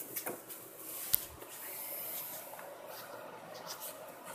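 Light rubbing and clicking of a rear wiper blade being worked on its arm by hand, with one sharp click about a second in.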